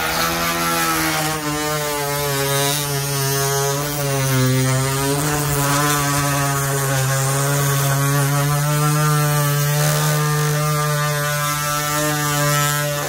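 Cordless oscillating multi-tool cutting the plastic flange off an RV skylight frame: a steady, loud buzzing whine whose pitch wavers slightly as the blade bites.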